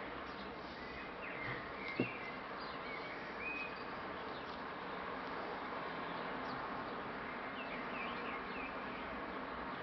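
Faint steady background noise with a few short, faint chirps scattered through it, and a single soft click about two seconds in.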